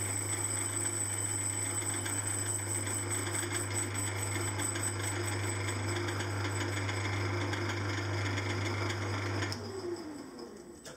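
Small metal lathe running steadily with a flywheel spinning in the chuck during a light skim pass across the face of the rim, with a steady low hum. About nine and a half seconds in, the lathe is switched off and winds down, its pitch falling as the spindle slows.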